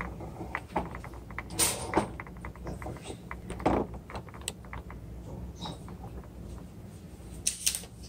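Handling noise: scattered clicks and knocks, with louder scraping rustles about one and a half seconds in, near four seconds and near the end, over a low steady hum.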